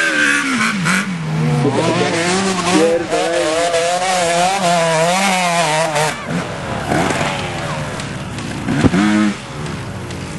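Dirt bike engines revving, the pitch rising and falling with the throttle. About six seconds in the sound changes to another bike, whose revs climb, and a sharp knock stands out near the end.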